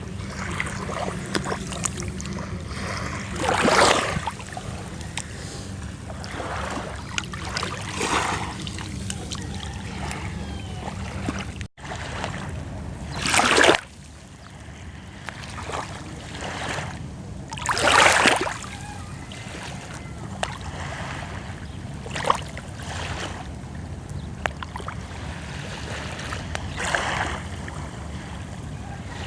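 Sea waves washing onto a shore, a hissing swell every four to five seconds over a steady low rumble. The sound drops out for an instant about twelve seconds in.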